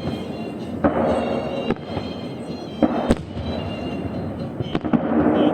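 Festive fireworks salute: shells bursting with sharp bangs at irregular intervals, about five in a few seconds, over a continuous background with music playing.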